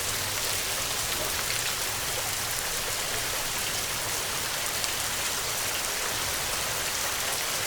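Heavy rain falling steadily, an even, unbroken hiss of drops with no thunder clap.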